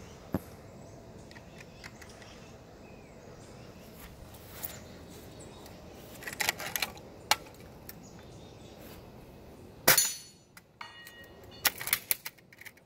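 Scattered clicks and metallic clinks from handling an air rifle and its gear, with one loud sharp knock or crack about ten seconds in, the loudest sound, followed by a few more light clinks.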